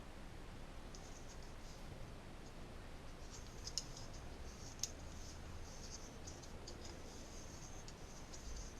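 Faint scratching and rustling of hand work on pipe fittings, with two sharp clicks about four and five seconds in and a few lighter ticks later.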